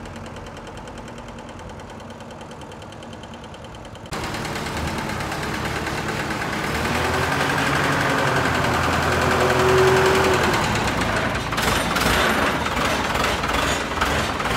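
A machine running with a fast, fine rattle, jumping suddenly louder about four seconds in. Sharp knocks come in near the end.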